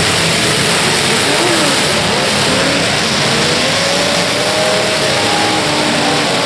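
Several demolition derby cars' engines revving at once, their pitches rising and falling separately over a steady, loud wash of noise.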